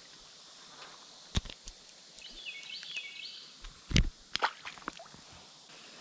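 A few sharp clicks and knocks over faint outdoor hiss as a small, just-caught bass is handled, the loudest cluster about four seconds in. A short, high chirping call sounds in the middle.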